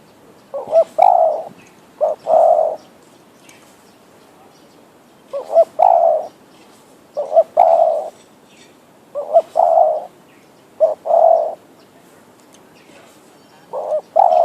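Spotted dove cooing: a repeated phrase of one or two short clipped notes leading into a longer coo, given about six times at intervals of roughly two seconds.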